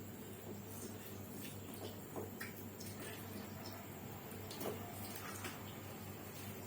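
Quiet, wet eating sounds from a meal of soft rice eaten by hand: scattered small smacks and clicks, over a low steady hum.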